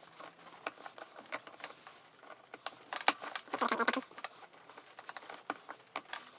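Scattered light clicks and taps of small plastic and metal parts being handled and fitted, as the plastic carburettor is put back on a Briggs & Stratton 450E lawnmower engine. A short pitched sound stands out about three and a half seconds in.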